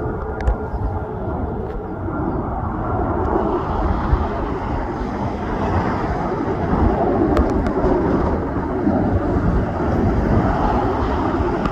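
Airbus Beluga cargo jet's engines, a loud, low, steady rumble.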